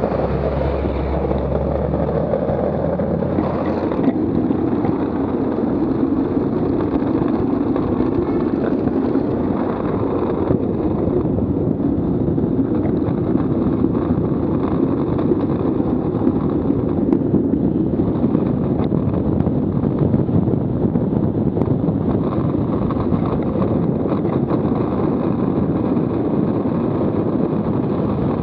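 Buggy Rollin wheelsuit's wheels rolling on asphalt, with wind rushing over the microphone as speed builds downhill from about 12 to 45 km/h. In the first few seconds a truck's engine rumbles low alongside, fading out as it is passed.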